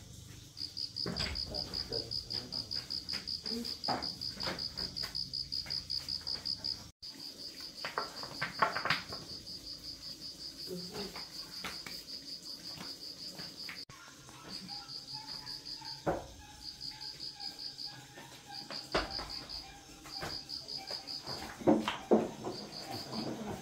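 Cricket chirping in a fast, even, high-pitched pulse. It runs steadily for the first half, then comes in short runs with gaps. Scattered knocks and clicks sound over it, the loudest near the end.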